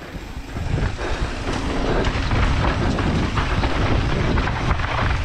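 Mountain bike descending fast on a dry dirt trail: tyres rumbling over dirt and roots, with the bike rattling and clattering over the bumps. The sound builds over the first two seconds as the bike picks up speed, then holds steady.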